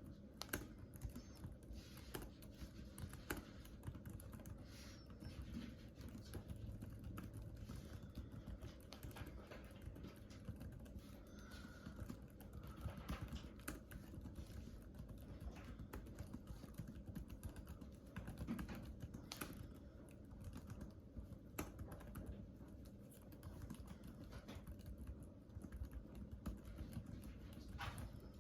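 Continuous typing on a computer keyboard: a steady stream of quick, irregular key clicks.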